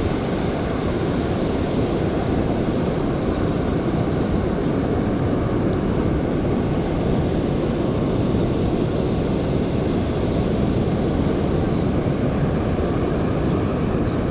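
Steady roar of ocean surf breaking on the shore, mixed with wind rumbling on the microphone.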